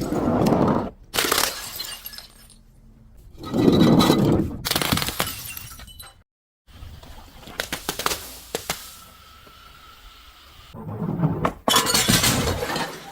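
Glass bottles breaking and shattering in several separate bursts, with sharp ticks of falling shards between them; the loudest breaks come about four seconds in and again near the end.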